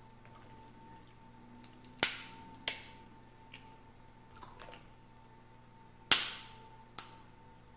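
Sharp snapping cracks of boiled seafood shells being broken apart by hand: four loud snaps, the loudest about six seconds in, with a few softer clicks between.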